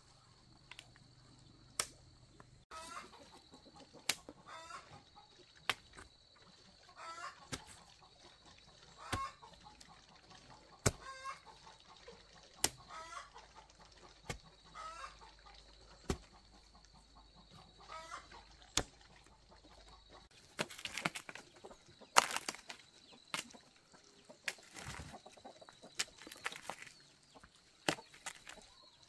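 A hoe chopping into clay soil in steady strokes about every one and a half to two seconds, with chickens clucking between the strokes. Some two-thirds of the way through, the strokes turn heavier and noisier.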